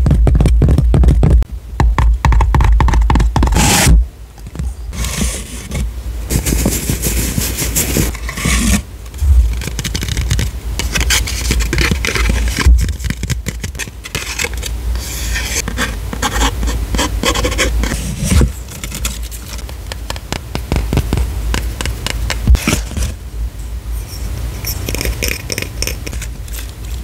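Close-miked unboxing handling sounds: scraping and rustling as a cardboard tube is opened and paper wrapping is pulled out and crinkled open, with small clicks and taps. Near the end a wooden lid scrapes on a jar.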